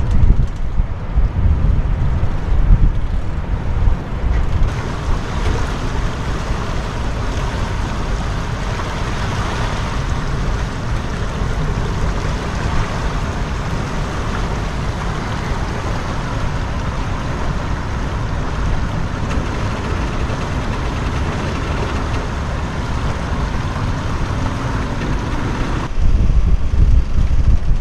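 Wind buffeting the microphone, heavy at the start and again near the end, over a steady rush of water from the flooded river.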